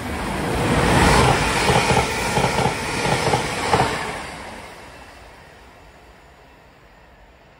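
Northern multiple-unit passenger train running through the station at speed without stopping. A rushing noise swells to a peak about a second in, with a quick run of wheel clacks as the carriages pass, then dies away after about four seconds.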